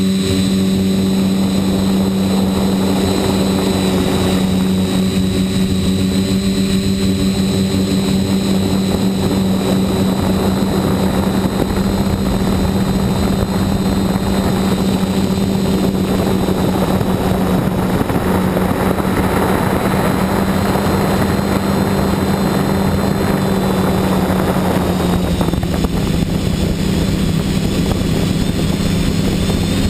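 Electric motors and propellers of an RC quadcopter in flight, heard close up from the camera mounted on it: a steady buzzing hum with a faint high whine, over a rush of propeller wash and wind noise that swells for a few seconds in the middle.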